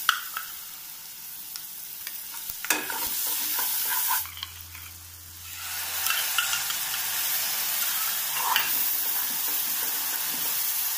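Water-soaked spice paste frying in hot oil in a kadhai: a steady sizzle and splutter, with a steel slotted spoon scraping and clinking in the pan. The sizzle dips briefly about four seconds in, then comes back stronger as more paste goes into the oil.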